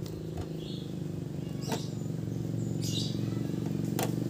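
A screwdriver driving a self-tapping screw into the sheet-metal body of a portable gas stove, with two sharp metal clicks, about one and a half seconds in and near the end. A steady low hum runs underneath and is the loudest sound throughout, and birds chirp now and then.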